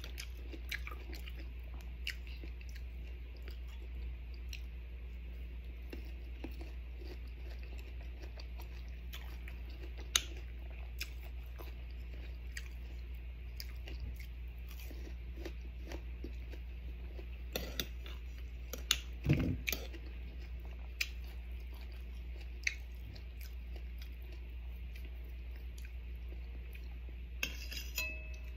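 Close-up chewing and crunching of unripe green mango slices with shrimp paste, with scattered small mouth and cutlery clicks over a steady low hum. A few louder clicks come about two-thirds of the way through, and a spoon knocks on the plate near the end.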